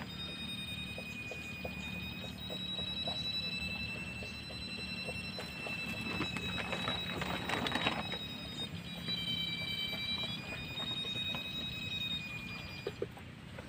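Handheld electronic treasure detector with a probe wand sounding a steady, high-pitched electronic tone made of several pitches held together, which steps to different pitches a few times as the probe is moved over the pit floor.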